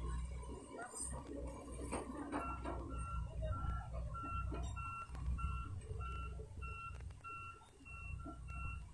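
Excavator warning alarm beeping evenly about twice a second, starting a couple of seconds in, over the low steady sound of the machine's diesel engine running.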